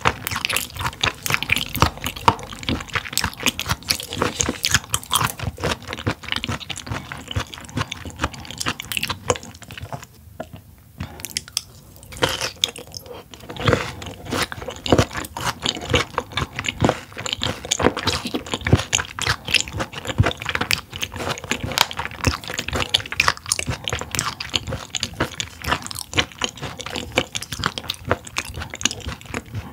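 Close-miked chewing of raw mullet stomach (gizzard), a dense run of small rapid clicks with a brief lull about ten seconds in.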